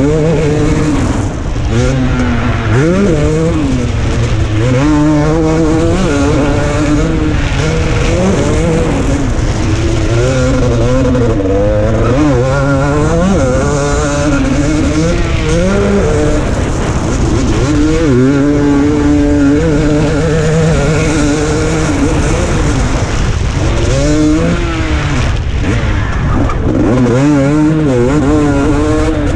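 KTM 250 SX two-stroke single-cylinder motocross engine, heard close from the rider's onboard camera, revving up and down over and over as the bike accelerates, shifts and backs off around the track.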